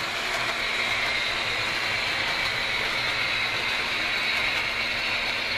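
HO-scale model train rolling past with a string of bi-level commuter coaches: a steady whirring rattle of metal wheels on the track and the locomotive's drive.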